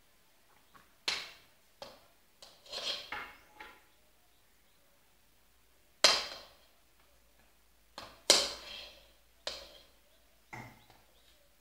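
A series of sharp knocks and clatters at irregular intervals, each dying away quickly, with the two loudest about halfway through and two-thirds through.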